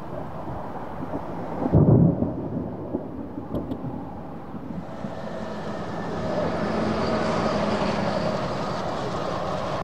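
Thunder: a loud low boom about two seconds in, followed by rumbling, then a steady rushing noise that swells in the second half.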